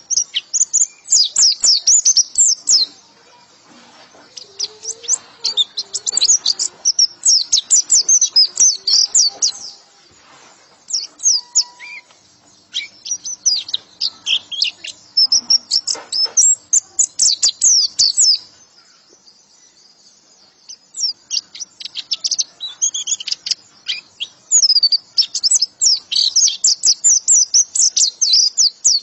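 A white-eye (pleci) singing the 'ngekek' style: long runs of rapid, high chattering notes in phrases of a few seconds, broken by short pauses.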